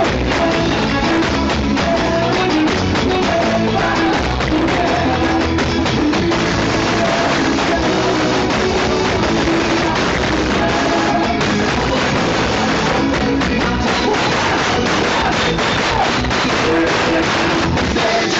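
Live band music played loud through the stage sound system, with electric guitar and a steady beat.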